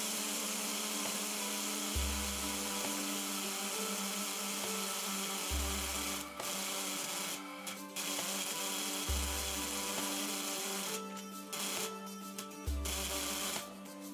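Safety valve of a 1½-inch-scale live steam locomotive blowing off with a steady hiss, the sign that the boiler has reached full pressure; the hiss cuts out briefly a few times. Background music with held chords and a deep bass note every few seconds plays under it.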